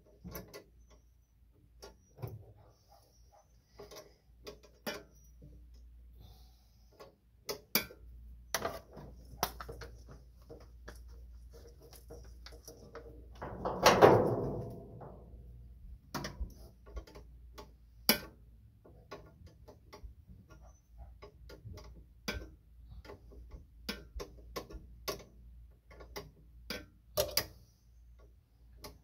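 Hand wrenches working the fuel line fittings on a car's carburetors: irregular clicks and light metallic taps, with one louder metal clank that rings for about a second halfway through.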